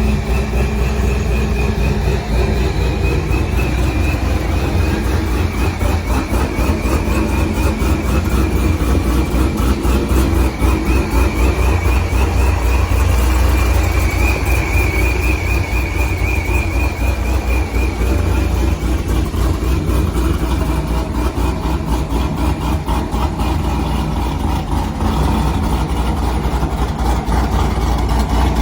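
C6 Corvette's V8 idling loud and steady with a choppy, lumpy idle, the chop typical of an aggressive camshaft.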